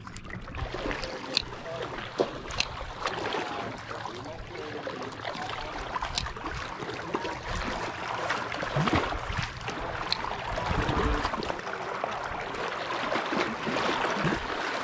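Lake water lapping and trickling close by, with a few sharp clicks and knocks scattered through it.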